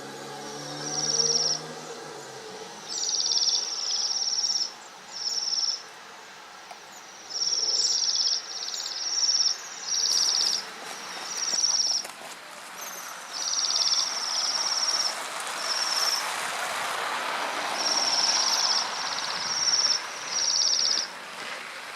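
A small songbird singing: short, high, rapid trills, each under a second, repeated in a string of some fifteen phrases.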